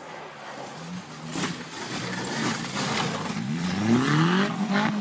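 Rally car engine approaching on a snowy stage, growing louder as it comes closer, then revving up in a steep rising note as it passes close by near the end, with a few sharp cracks along the way.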